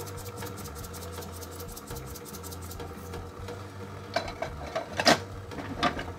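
A steady low hum under fast, even ticking, about five ticks a second, which dies away about three seconds in. After that come a few sharp clicks and taps from small toy pieces being handled, the loudest about five seconds in.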